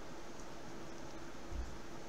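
Steady faint hiss of room noise with a low hum, and a soft low bump about one and a half seconds in.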